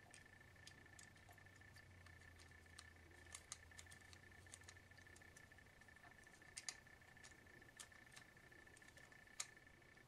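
Faint scattered small clicks and ticks of a washer lid lock's plastic housing and slider being handled, with a sharper double click about six and a half seconds in and another about nine and a half seconds in, over a faint steady high tone.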